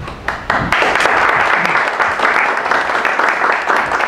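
Audience applauding: a few scattered claps, then steady applause from about a second in.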